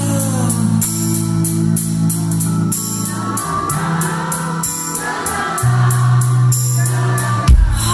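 Live band playing a soul-blues song: long held bass and keyboard notes under a steady ticking beat, with singing over it. There is a loud low hit near the end.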